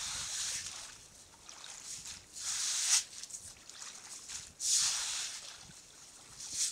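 Push broom scrubbing out a shallow concrete water basin, its bristles swishing through the water and over the wet concrete in long strokes about every two seconds.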